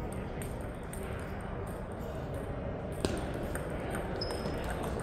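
Table tennis rally: the ball clicking off the paddles and table, the sharpest hit about three seconds in, over a steady gym room hum.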